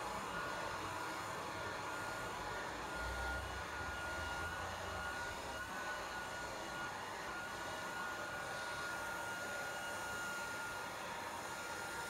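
Handheld hair dryer running steadily: an even rush of blown air with a thin, steady motor whine above it.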